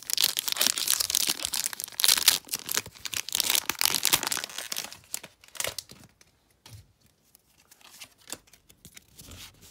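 Foil wrapper of a Pokémon card booster pack being torn open by hand, crinkling and tearing for about four and a half seconds, then only a few faint rustles and taps.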